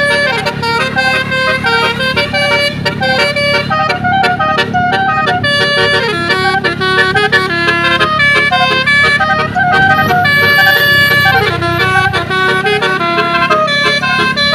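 Bus telolet horns, the multi-tone air horns of Indonesian coaches, playing a quick stepping melody over and over, several lines overlapping, with a steady low hum beneath.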